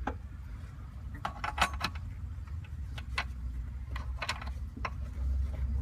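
Scattered sharp clicks and small rattles of a steering column sensor and its parts being handled and fitted by hand, a cluster of them about a second and a half in, over a steady low rumble.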